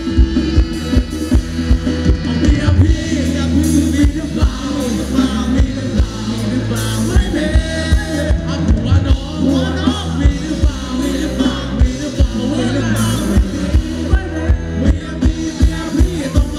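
Amplified live Thai ramwong band music with a singer's voice over a steady bass-drum beat.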